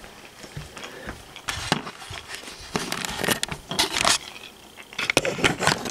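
Handling noise: irregular rustling, scraping and knocks of things being handled and moved close to the microphone, in several short bursts.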